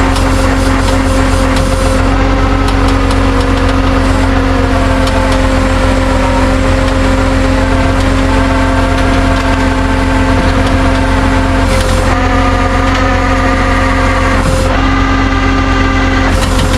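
Motor vehicle running steadily with a constant low drone, over a band of shifting steady tones.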